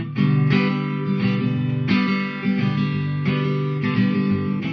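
Guitar playing chords in an instrumental passage of a song, with no singing.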